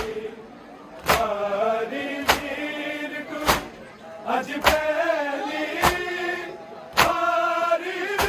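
Men chanting a mourning noha together, with sharp, loud matam chest strikes by hand in a steady beat about once every 1.2 seconds.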